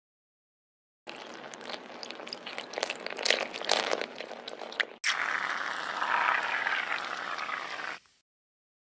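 Two sound-effect clips back to back: a crackling noise full of small clicks for about four seconds, then a steady hiss for about three seconds. Each starts and cuts off abruptly.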